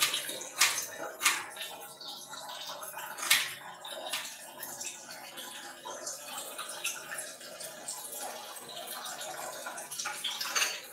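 A few sharp knocks of a knife on a plastic cutting board during food prep, three in the first few seconds and one near the end, over a steady hiss.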